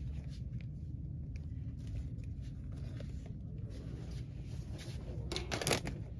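Boxes of plastic storage bags being handled at a shopping cart: scattered soft rustles and taps, with one short, louder rustle about five and a half seconds in, over a steady low rumble.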